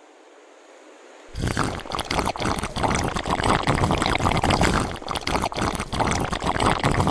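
Water being poured close by, a loud splashing run of liquid that starts a second or so in, breaks briefly about five seconds in, then goes on again.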